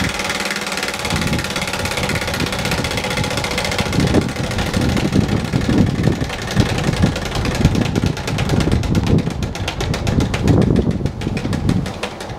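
Hand-spun prize wheel turning freely, its pointer ticking rapidly against the pegs and slowing as the wheel winds down to a stop. Gusty wind rumbles on the microphone underneath.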